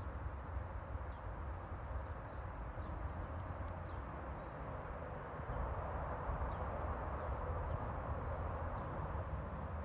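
Outdoor ambience of distant traffic hum, with short high bird chirps scattered through it. The hum swells a little about halfway through.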